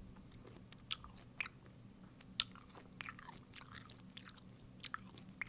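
A person biting and chewing a dill pickle close to the microphone: irregular wet mouth clicks and smacks, with little crunch.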